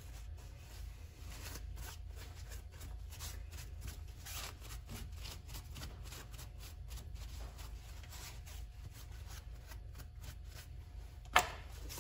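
Shop rag wiping and rubbing over a metal lathe chuck and its jaws: a run of faint rustling, scraping strokes over a low hum, with one sharp click near the end.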